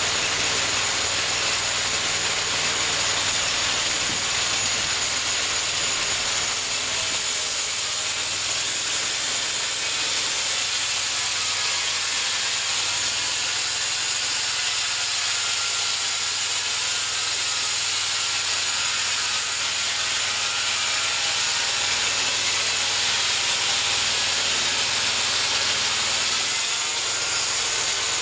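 Homemade bandsaw mill running steadily with its blade cutting through a cherry log: a constant high-pitched sawing noise over a low steady engine hum.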